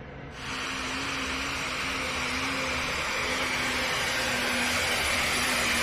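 Super stock diesel pulling tractor's engine at full throttle hauling the sled: a loud, dense roar that comes in suddenly about half a second in and keeps building as the run goes on.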